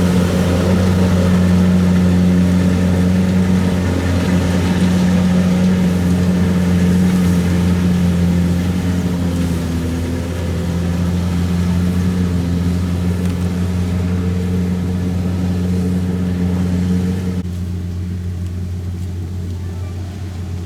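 Kubota DC-70 combine harvester's diesel engine running steadily under load while harvesting rice, with a constant low hum and machinery clatter on top. About three seconds before the end the sound drops and gets duller.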